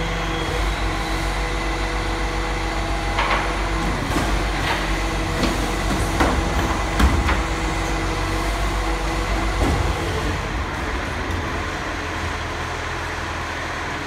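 Garbage truck running, a steady mechanical hum from its engine and hydraulics, with several sharp metal clanks and knocks from about three to ten seconds in. The hum eases a little near the end.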